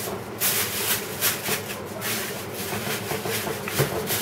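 Aluminium foil crinkling and crackling irregularly as hands press and tuck it down over a metal baking tray.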